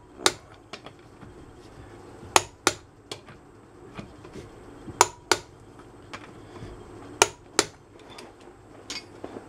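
Click-type torque wrench set to 100 ft-lb signalling on car wheel lug nuts: sharp metallic clicks in pairs about a third of a second apart, four pairs roughly every two and a half seconds, with faint ticks between. The wrench clicks almost at once because the impact gun had already run the nuts to a little more than 100 ft-lb.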